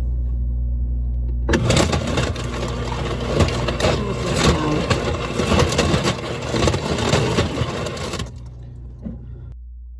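Refrigerator water dispenser running for about seven seconds, a loud rushing, clicking noise over a steady low hum.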